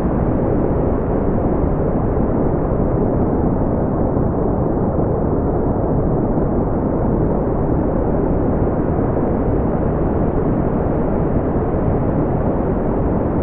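Brown noise: a steady, even rumbling hiss with most of its weight in the low end, fading out in the highs, unchanging throughout.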